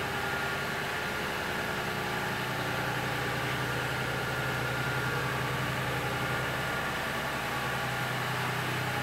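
Steady hum of industrial machinery running, a low drone with a few steady higher whining tones over it. The lowest part of the drone drops away near the end.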